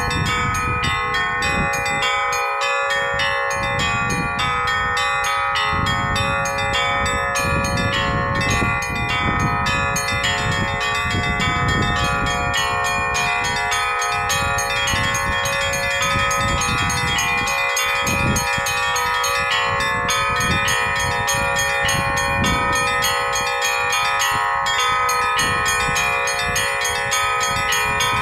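Russian bell ringing (zvon) on a set of bells cast by the Andrei Dyachkov bell foundry, hung in a portable belfry. Rapid strikes on the smaller bells ring over the continuous hum of the larger ones.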